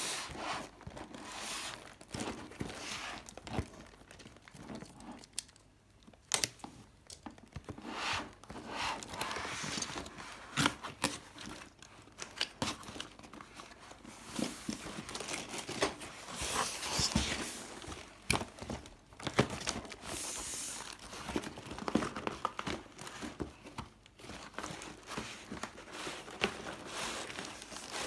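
The cardboard box and plastic parts bags of a brick building set being opened and handled: uneven crinkling and rustling of packaging, broken by frequent short clicks and taps.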